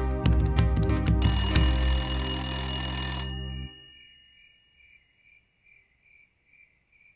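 Music with a strong beat, over which a telephone bell starts ringing about a second in; both stop about three and a half seconds in, leaving near quiet, and the bell rings again right at the end.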